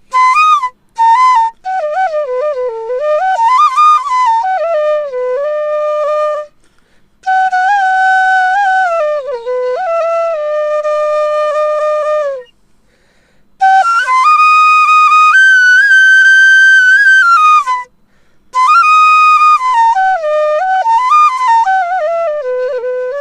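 Solo bansuri (Indian bamboo flute) playing a Pahari folk melody. It plays in ornamented phrases with short breath pauses between them, and holds one long note past the middle.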